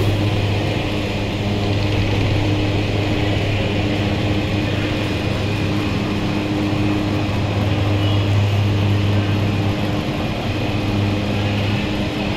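A steady, low mechanical hum with fainter higher tones above it, from an engine or motor running without change.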